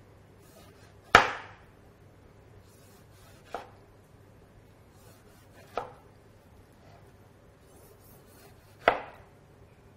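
Chef's knife slicing through vine-ripened tomatoes and knocking on the cutting board: four separate cuts a few seconds apart, the first and last the loudest.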